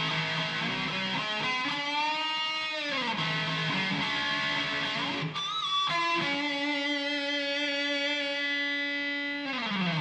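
Distorted electric guitar played through a Fender combo amplifier: long held notes that bend in pitch, a short higher phrase in the middle, and a final held note sliding down at the end.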